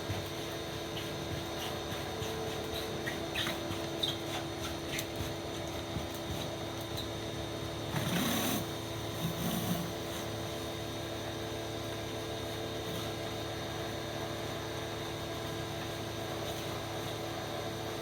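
Pressure washer running steadily with a constant hum, a few light clicks in the first few seconds, and a brief louder rush about eight seconds in.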